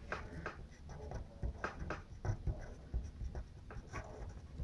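Pen scratching on paper while writing, in short irregular strokes.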